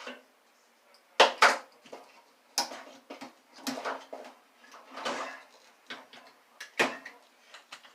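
Metal parts of a microwave oven clanking and scraping as they are worked loose. A string of sharp knocks, the loudest a pair just over a second in, with a longer scrape about five seconds in.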